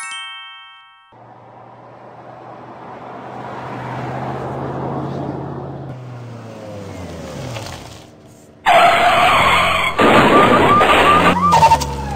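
Car sound effects. A short chime rings at the start, then a car engine runs and passes by, swelling and fading with gliding pitch. About three-quarters of the way in, a sudden loud stretch of tyre screeching and skidding begins.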